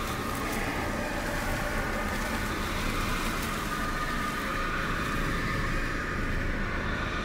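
Ominous film-score drone: a steady low rumble under faint sustained high tones, with no beat.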